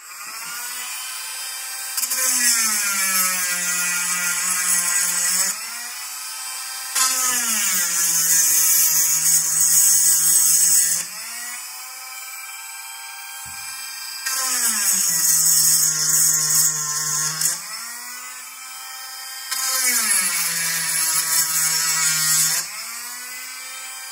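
Dremel rotary tool grinding out the motor-mount screw holes to lengthen them. It makes four passes of a few seconds each: the motor's pitch drops and a hissing grind comes in as the bit bites, and between passes the tool runs freely at a higher pitch.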